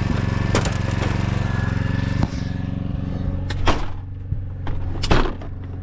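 A generator engine running with a steady low hum, with several sharp knocks and clatters over it.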